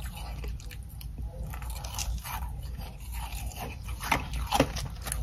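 Ice chunks coated in humidifier frost being bitten and chewed: a run of sharp crunches, the two loudest close together near the end.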